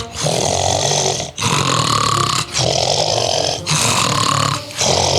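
Loud snoring in an even rhythm, a lower buzzing snore and a higher-pitched one taking turns about once a second.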